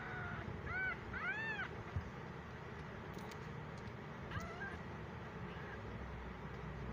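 A fifteen-day-old kitten mewing: three high, arching mews in the first two seconds, then one shorter mew a little past the middle.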